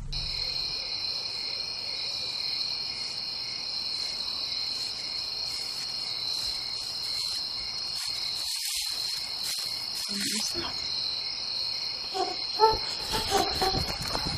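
Crickets chirping in a steady, high-pitched night chorus, with a few short knocks near the end.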